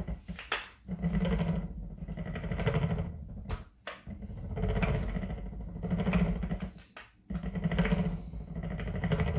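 Electric-skateboard direct-drive brushless hub motor turning in repeated pushes, each a second-long rumble with a rapid notchy clicking as the rotor clicks into position. The bumpy, stiff roll is what the owner suspects comes from bad motor bearings.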